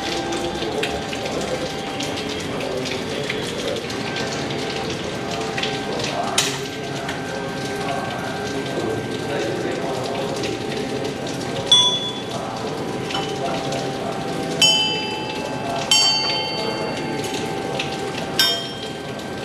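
Small brass bells hung in a row, struck by hand one at a time: five separate strikes, the first about six seconds in and the other four in the second half, each ringing on and fading.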